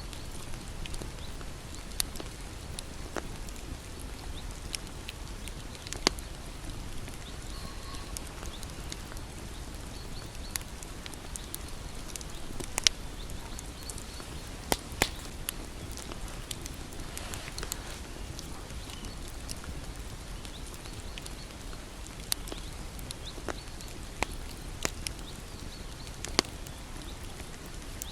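Bonfire burning: a steady low rumble of flame with sharp, irregular crackles and pops from the burning wood, a few of them louder than the rest.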